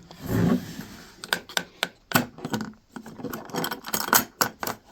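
A snap ring plier kit's case being turned around and handled: a brief scrape at the start, then a run of irregular sharp clicks and knocks.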